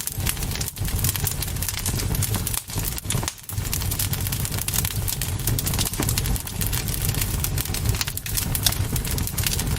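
Campfire burning, the wood crackling with dense pops and snaps over a steady low rumble, with a brief lull about three seconds in.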